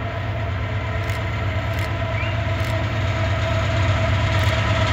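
Lead GE diesel-electric locomotives of a Norfolk Southern freight approaching with their engines running: a steady drone and low rumble that grows louder as the train nears.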